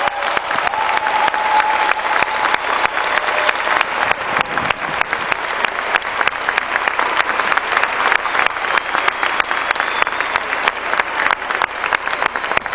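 Large stadium crowd applauding: dense, steady clapping from many hands.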